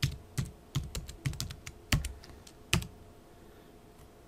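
Typing on a computer keyboard: a run of uneven keystrokes that stops about three seconds in.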